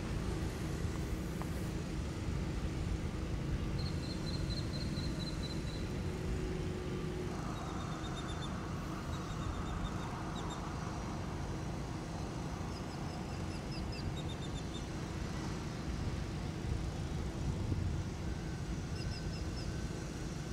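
Steady low outdoor rumble, with a small bird chirping in quick runs of short high notes several times, the first about four seconds in.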